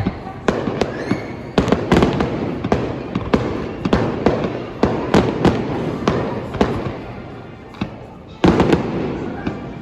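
Aerial fireworks bursting in quick succession, sharp booms with echoing tails, a few every second. They thin out briefly just before the last couple of seconds, then a new volley starts.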